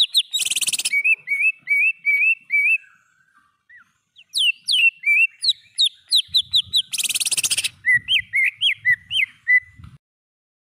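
Cucak ijo (green leafbird) singing: runs of quick, repeated whistled notes, broken twice by a short harsh rattle, once near the start and once about seven seconds in. There is a brief lull around three seconds in, and the song stops shortly before the end.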